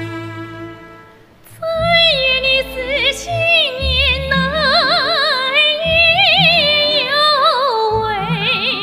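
A held orchestral string chord fades out, and about two seconds in a female soprano enters, singing a high, ornamented Chinese folk-song line with wide vibrato over a symphony orchestra.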